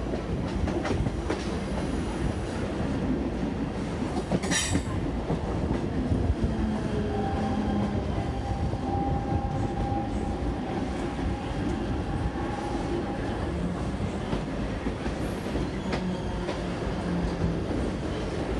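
Mumbai suburban local train running, heard from inside a coach by its open door: a steady rumble and clatter of wheels on the rails, with a short sharp squeal about four and a half seconds in. Near the end another train passes close alongside.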